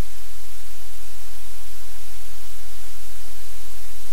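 Loud, steady hiss over a low, constant hum, with nothing distinct standing out.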